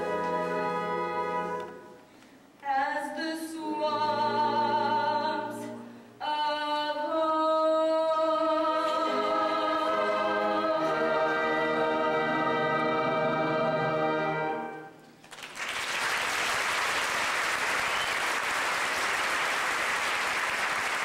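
Live musical-theatre number ending: a female lead and women's chorus sing with instrumental accompaniment, building to a long held final note. About fifteen seconds in the singing stops and audience applause breaks out.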